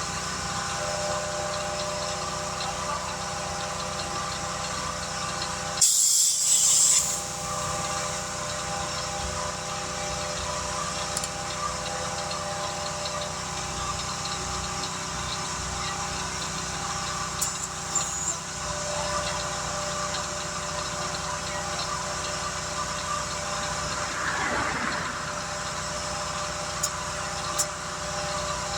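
Vehicle engine idling steadily, with a brief, loud hiss about six seconds in.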